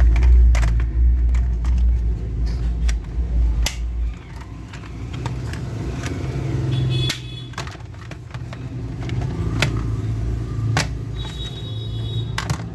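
Scattered sharp clicks and knocks over a low rumble that is strongest for the first four seconds and then drops to a lower hum. Two short, high, pulsing tones come about seven and eleven seconds in.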